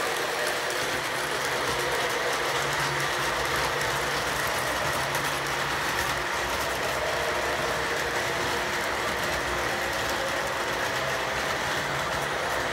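Model electric train running on its track, a steady rolling rumble of wheels and motor hum with faint clicking over the rail joints.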